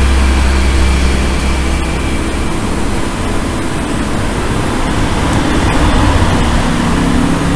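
Steady, loud rushing machine noise with a low hum that fades about two and a half seconds in, and a few light clicks.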